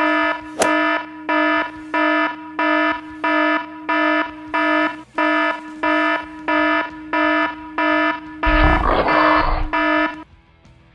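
Electronic warning beeper sounding one steady-pitched beep about one and a half times a second, like a vehicle's reversing alarm, stopping about ten seconds in. A short rush of noise comes over the beeps near the end.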